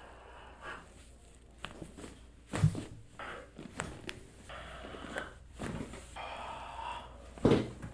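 Chiropractic adjustments: two loud sudden cracks about five seconds apart, the first the loudest and deepest, with softer clicks and rustling of the patient on the table between them.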